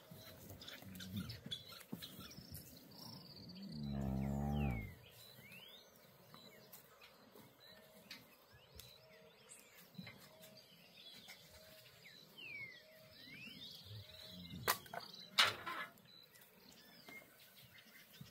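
One moo from cattle about four seconds in, a single low call lasting about a second, over the chirping of birds. Two sharp knocks come near the end.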